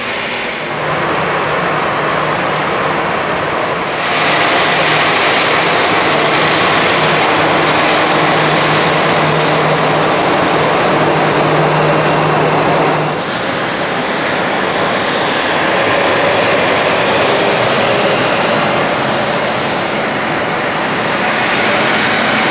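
Jet airliner engines running on the ground: a steady rushing hiss with a whine. It turns abruptly louder and brighter about four seconds in and drops back just as suddenly about thirteen seconds in.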